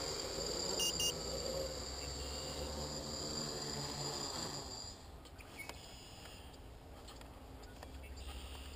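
XAircraft DIY-Hexa hexacopter's six electric motors and propellers whining steadily, then winding down and stopping about four and a half seconds in as it lands. Two short high beeps come about a second in.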